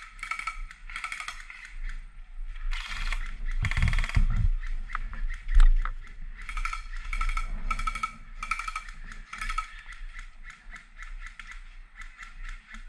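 Airsoft guns firing in quick runs of clicking shots, with one louder thump about halfway through.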